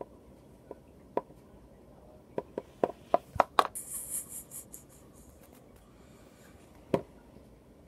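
Small plastic Littlest Pet Shop toy figures handled and set down on a hard table: light clicks and taps, coming quickly about two and a half to three and a half seconds in, then a brief rustle, and one more sharper click near the end.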